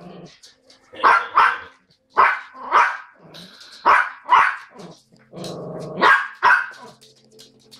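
Yorkshire terriers play-fighting: sharp barks, mostly in quick pairs, about eight in all, with a short low growl a little past halfway.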